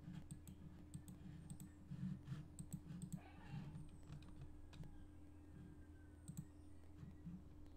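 Scattered light clicks of a computer mouse, some close together and some spread out, over a faint steady low hum.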